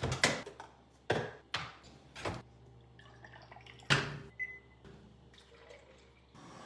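Several separate sharp knocks and clicks of objects being handled, about five in the first four seconds, the loudest about four seconds in.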